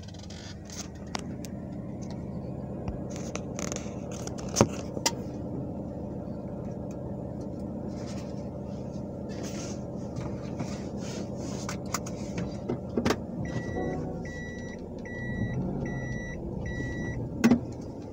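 Car engine running at low speed, heard from inside the cabin, with a few sharp knocks. Near the end an electronic beep sounds five times, evenly spaced a little under a second apart.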